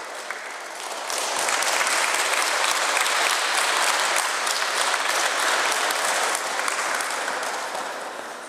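Audience clapping, the applause swelling about a second in, holding steady, then dying down near the end.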